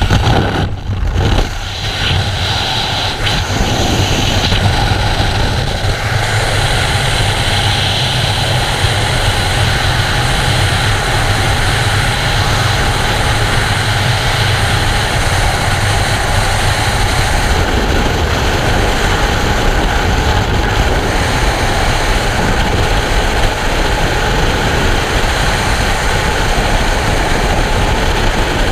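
Steady, loud rush of freefall wind over a helmet camera's microphone. In the first few seconds it comes with jolts and buffeting as the skydivers leave the open aircraft door.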